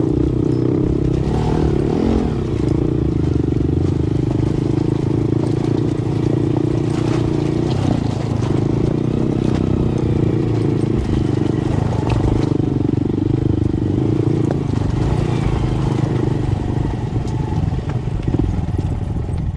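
Motorcycle engine running steadily while riding an off-road track, with scattered knocks and rattles from the rough ground.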